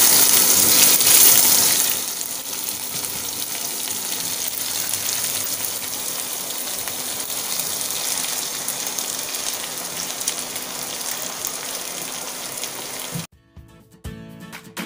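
Chopped green chilli, ginger and garlic sizzling in hot oil in a steel pan, loudest for the first two seconds, then a steadier, quieter sizzle. It cuts off suddenly about 13 seconds in, and music begins near the end.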